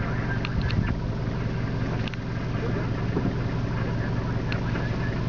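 A vehicle's engine idling with a steady low rumble, with a few faint ticks.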